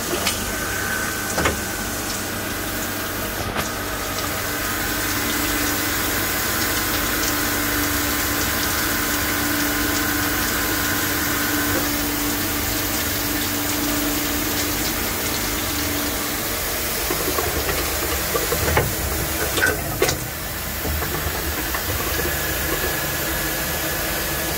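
Hanwha XP12S CNC Swiss-type lathe running, with a steady hiss of coolant spraying and a mechanical hum. Steady tones drop out partway through, and a few sharp clicks come near the end.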